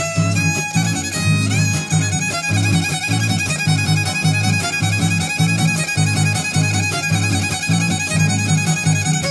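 Son huasteco instrumental passage: a violin plays the lead melody with slides over the steady strummed rhythm of a jarana huasteca and a huapanguera.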